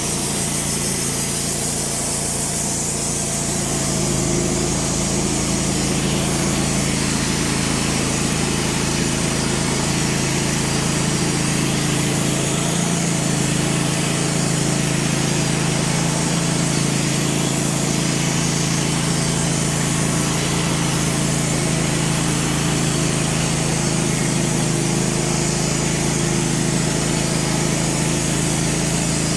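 Wood-Mizer LT15 portable bandsaw mill running steadily while milling a black cherry log, with a slight rise in level about four seconds in.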